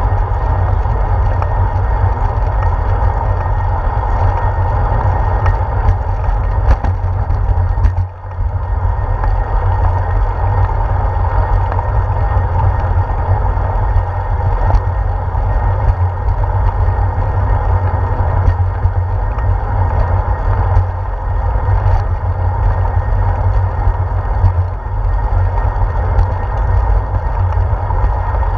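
Steady wind buffeting and riding rumble on a handlebar-mounted GoPro's microphone as a bicycle rolls along a paved path, with a few sharp clicks from bumps and rattles. The noise drops out briefly about eight seconds in.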